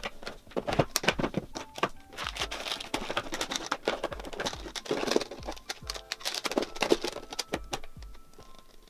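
Clicks, taps and rustling of plastic makeup packaging, compacts and palettes being handled and set into clear acrylic drawer organizers, over soft background music with a low beat.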